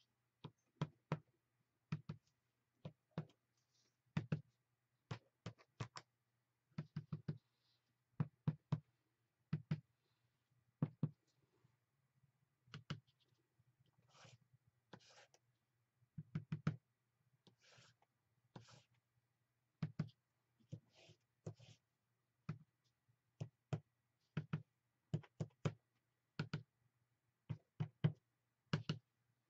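Irregular sharp taps, sometimes two or three in quick succession, with a few short scratchy scrapes: a small white mark-making tool pressed and dragged onto a paper journal page on a tabletop, printing short lines of white acrylic paint.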